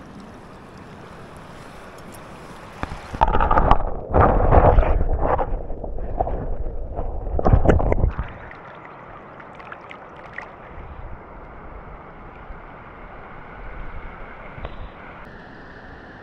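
Water splashing and sloshing for about five seconds, starting about three seconds in, as a released rainbow trout kicks away from the net with the camera at the water's surface. After that comes the steady, quieter rush of the river.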